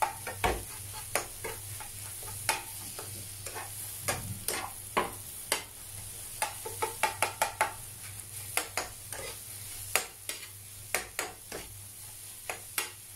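Egg bhurji (scrambled eggs with onion and tomato) sizzling in a non-stick frying pan while a spatula stirs and scrapes it, with irregular clicks and taps of the spatula against the pan.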